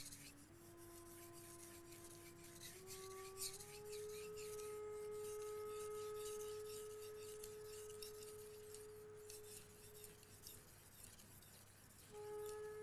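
Soft background flute music: slow, long held notes stepping upward in pitch, one held for about six seconds in the middle. Faint scraping of a knife blade stroked along a whetstone underneath.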